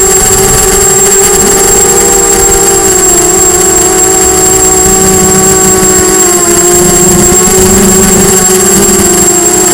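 Brushless motors and propellers of a Diatone Blade 250 racing quadcopter in flight, heard through its onboard Mobius action camera: a loud, steady buzz of several close tones whose pitch wavers up and down with throttle, over a constant high-pitched whine.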